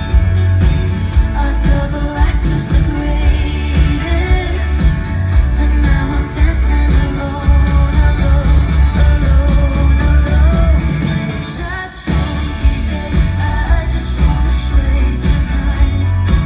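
Live pop song performed by a female singer and band, with her sung vocal over heavy bass and drums. There is a short break in the music about twelve seconds in.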